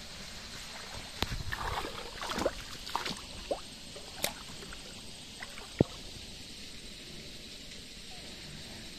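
Hands splashing and sloshing in shallow stream water, in a string of short splashes and sharp clicks over the first six seconds, over a steady rush of flowing water.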